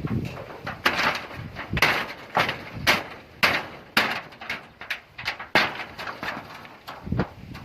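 A series of sharp knocks, about two a second, irregular in strength.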